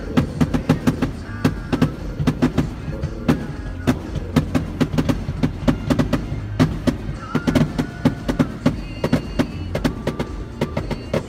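Aerial fireworks going off in quick succession, many sharp bangs and crackles a second, over music playing.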